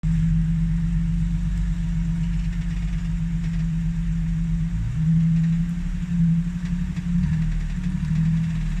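4x4 engine running steadily, then revving up a little about five seconds in and holding an uneven, slightly higher pitch during a tow recovery in the mud.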